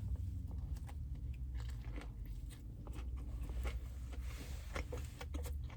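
A person biting and chewing food close to the microphone, with many small crunchy clicks over a low steady hum.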